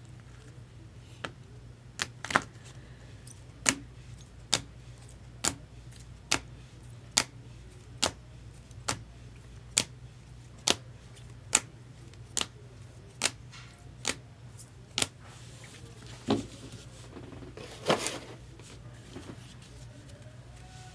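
Trading cards being handled and set down one after another: a sharp click a little more than once a second for about thirteen seconds, then a couple of softer shuffling sounds near the end.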